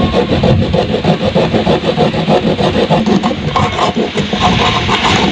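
A hacksaw blade sawing through a plastic toothbrush handle, rasping most strongly in the second half. Underneath, a motor runs steadily with a fast, even pulse.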